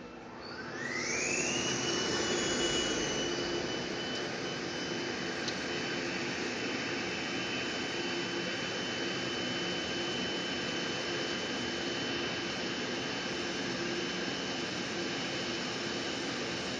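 A machine spinning up to speed: a whine rises over the first two seconds, then holds a steady pitch over a broad rushing noise while the machine keeps running.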